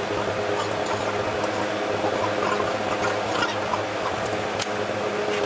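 A steady mechanical hum with an even hiss, a machine running, with a few faint light clicks on top.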